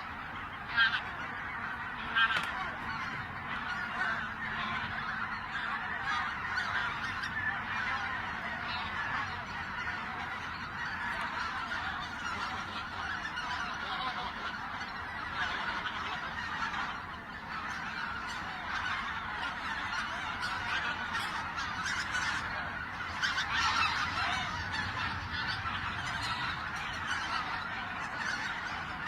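A flock of wild geese honking, many calls overlapping into a continuous clamour, with two sharper, louder honks standing out about one and two seconds in.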